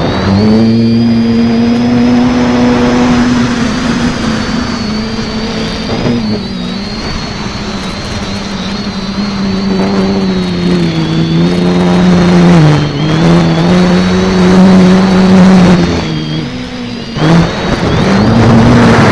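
Multirotor's electric motors and propellers humming in flight, heard from the onboard camera, with a thin high whine above the hum. The pitch slides up and down as the throttle changes, dipping briefly a few times, over a steady rush of air.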